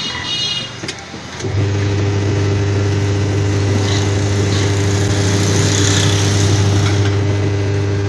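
Dawlance twin-tub washing machine starting up: a few clicks as the wash timer knob is turned, then about a second and a half in the wash motor starts and hums steadily, spinning the pulsator. The machine is running properly.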